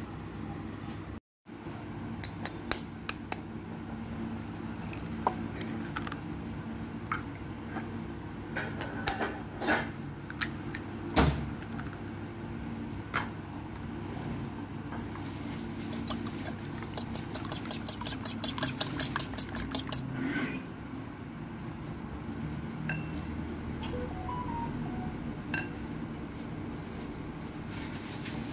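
Eggs being cracked and beaten with a fork in a ceramic bowl: scattered sharp knocks against the rim, then a few seconds of fast, even tapping as the fork whisks against the bowl. A steady low hum runs underneath.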